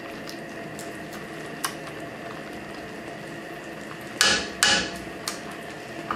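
Silicone spatula stirring chicken and broccoli in cream sauce in a frying pan: two short scraping knocks against the pan about four seconds in, with a lighter click before and after, over a faint steady sizzle of the sauce heating.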